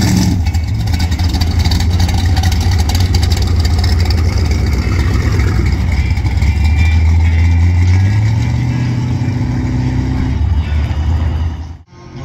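Hot-rod engines running with a deep, loud rumble as cars pull out along the lane. The engine note rises about eight seconds in, and the sound cuts off abruptly near the end.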